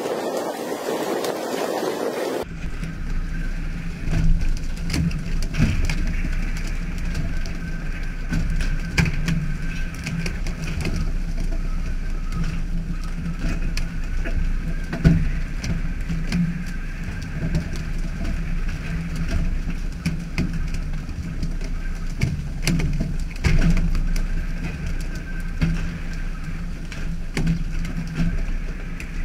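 A rush of wind and rough sea, cut off after about two seconds by a fishing boat's engine droning steadily. Frequent sharp knocks and thumps sound on deck over the drone as skipjack tuna are swung aboard by pole and line.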